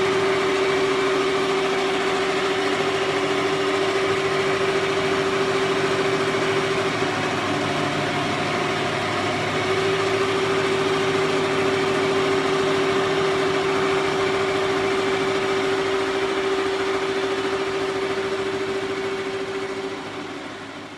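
Single-head He Feng computerised embroidery machine running and stitching: a steady hum with a fast, even needle rhythm, fading out near the end.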